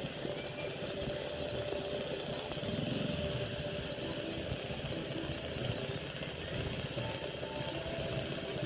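Steady noise of a jet airliner's engines.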